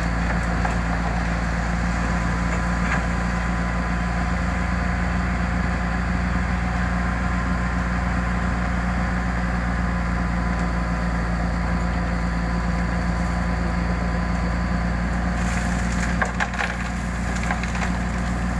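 Diesel engine of a Komatsu PC200-6 excavator idling steadily, with a few short clicks or knocks near the end.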